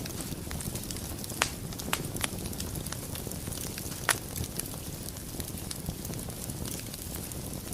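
Wood fire burning in a fireplace: a steady low rumble of flames with sharp, irregular crackles and pops of burning wood, the loudest pop about four seconds in.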